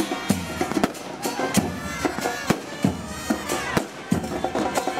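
Carnival murga music: bass drums and cymbals struck in sharp, uneven hits, with high held melody tones over them.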